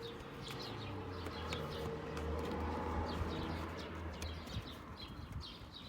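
Birds chirping repeatedly in the background, with a low steady rumble that swells and fades over the middle few seconds.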